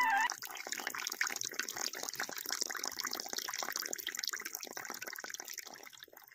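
Running water, a dense irregular splashing patter that fades out near the end.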